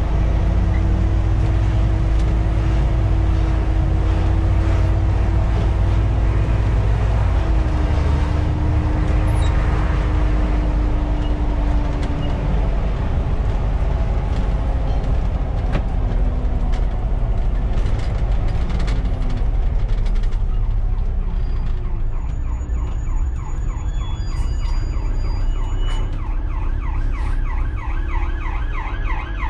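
Cab interior of a Volvo B7TL double-decker bus under way, its diesel engine running loud and steady with a whine that steps up in pitch about seven seconds in and fades out soon after. From about twenty seconds in, an emergency vehicle's siren joins in ahead, a fast rising-and-falling yelp.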